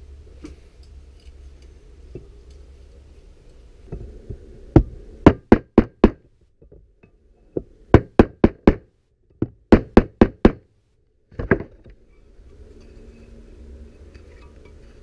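Sharp knocks in three quick runs of about five each, then a single one near the end. These are plausibly new crank seals being tapped into the KX125's crankcase bores.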